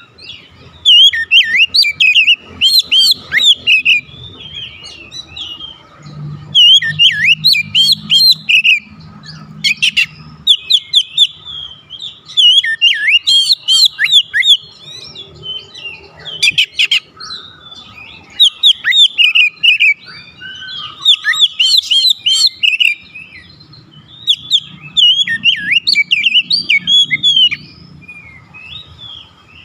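Oriental magpie-robin singing loud, rapid runs of varied whistles and chatters in bursts of a few seconds with short gaps. It is an excited song in which the bird pours out its stock of mimicked phrases.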